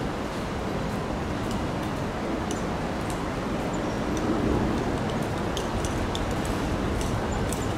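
Busy city street ambience: a steady hum of traffic and passers-by, with scattered faint clicks that come more often near the end.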